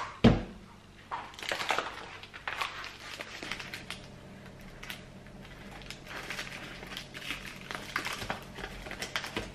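A thump just after the start, then the kraft-paper coffee bag crinkling and rustling as its rolled top is unfolded by hand, busiest in the first few seconds and softer after that.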